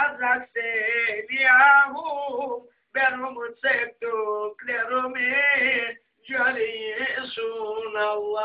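A man singing a Black Sea atma türkü unaccompanied, in a high, ornamented voice, in phrases broken by short breaths.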